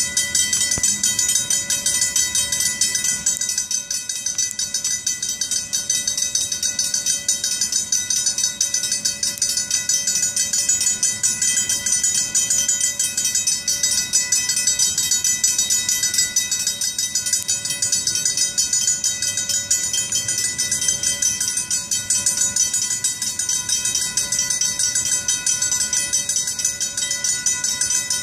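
Griswold mechanical railroad crossing bells ringing steadily with rapid, even strikes, the crossing's warning that a train is approaching.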